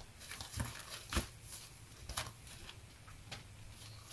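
Handling of a handmade paper bag journal: a few short knocks and paper rustles as it is closed and lifted off the table, the loudest a soft thump about a second in.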